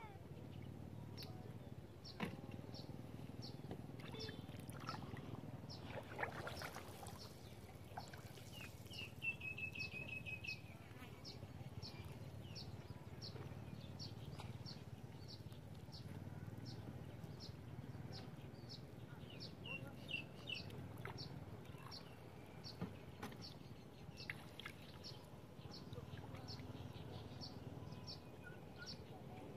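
Outdoor countryside ambience: a bird repeats a short high chirp evenly, about three times every two seconds, and another bird trills briefly twice. A low background hum and a brief noisy rush come about a third of the way in.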